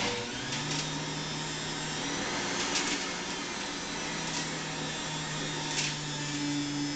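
Bullet Express centrifugal juicer's electric motor running steadily at speed, with a few brief ticks.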